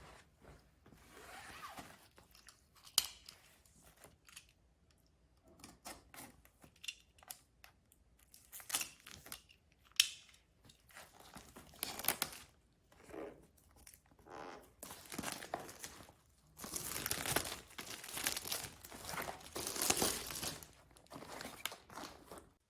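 Crinkling and tearing of packaging being handled, in irregular bursts with a few sharp clicks.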